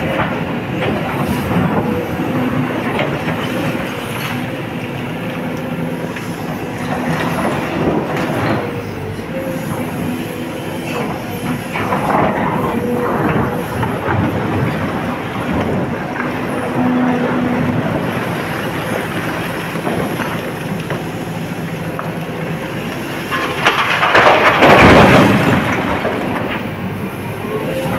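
Large Sany excavator's engine and hydraulics working steadily as the bucket digs broken rock out of water, with rocks knocking and clattering. About 24 s in comes the loudest part, a rush of rock and water pouring from the bucket into a steel dump truck bed.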